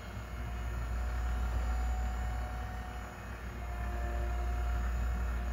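Small electric motor in a Minnie Mouse lights-and-sounds toy whirring steadily as it turns the figure round on its base.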